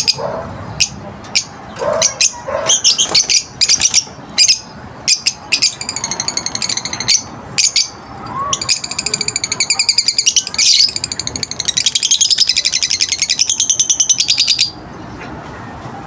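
African lovebirds calling: sharp, shrill chirps that build into a long, fast chattering about halfway through, which cuts off suddenly shortly before the end.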